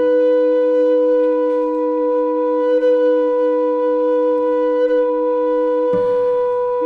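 Tenor recorder in a contemporary chamber piece: two long, steady notes sound together, a higher and a lower, with no vibrato. Near the end the lower note drops away for about a second while the higher one holds.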